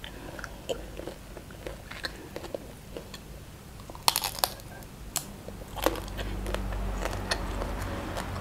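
Close-miked eating: a shrimp being bitten and chewed, with wet mouth clicks and a cluster of crunchy bites about four seconds in. A low steady rumble comes up about six seconds in.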